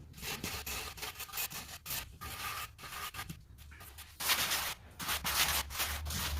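A tool scraping across mortar in repeated rubbing strokes as a floor mortar bed is spread and smoothed. The longest and loudest strokes come about four and five seconds in.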